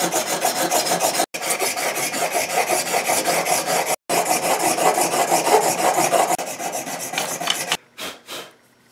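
Steel plane iron in a honing guide scraped back and forth on dry sandpaper stuck to a glass plate: a steady rasping, stroke after stroke, as the 25-degree primary bevel is ground in. The rasping breaks off twice for an instant and stops shortly before the end.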